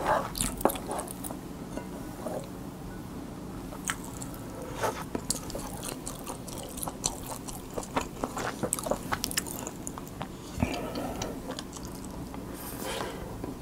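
Close-miked chewing and mouth sounds of someone eating kimchi fried rice: wet smacks and small clicks of the mouth between bites. Near the end a wooden spoon scrapes the plate as another spoonful is taken.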